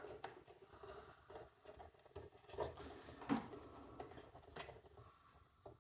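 Faint handling noise from the wire-feed mechanism of a MIG welder: scattered light clicks and rustling as its parts are handled, with a few sharper ticks around the middle, dying away near the end.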